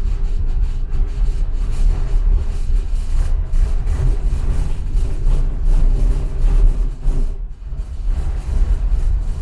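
Tram running along the rails: a steady low rumble with wheel-on-rail running noise. It dips briefly about seven and a half seconds in.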